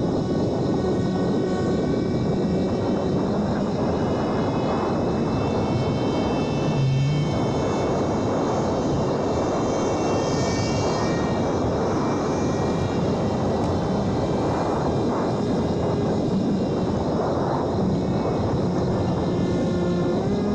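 Electric RC plane's brushless motor and propeller running steadily: a whine with a haze of air noise beneath it, its pitch drifting a little with the throttle.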